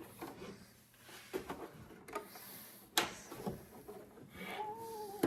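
Plastic parts of a 3D printer being handled and fitted: light knocks and rustling, with one sharp click about three seconds in. A short pitched call rises and falls near the end.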